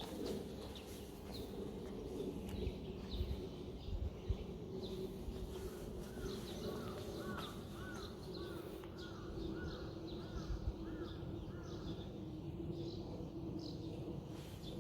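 Birds calling outdoors: short high chirps throughout, and in the middle a run of about a dozen evenly repeated arched calls. A steady low hum lies under them.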